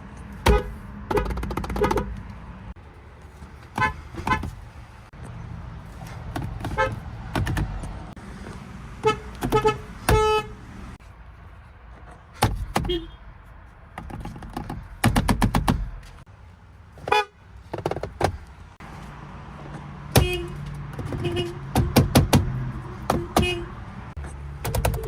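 A string of short car horn honks from different vehicles, one clip after another: single beeps, quick double toots and fast runs of several beeps, with traffic and engine rumble underneath that changes abruptly between clips.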